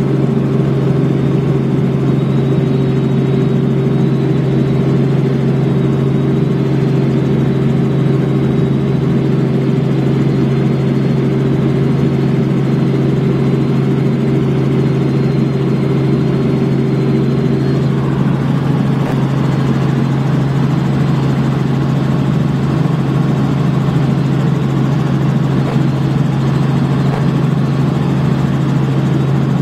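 Robinson R44 Raven I helicopter in flight, heard inside the cabin: its six-cylinder Lycoming piston engine and rotors make a loud, steady drone under a steady low hum. About eighteen seconds in, a higher hum drops away and the hiss of rushing air grows.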